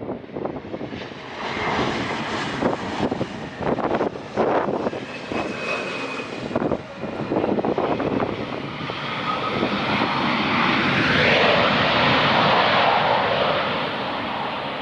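Airliner passing close over the airport, its engine noise swelling to a peak about two-thirds of the way in and then easing off. Strong gusty wind buffets the microphone in the first half.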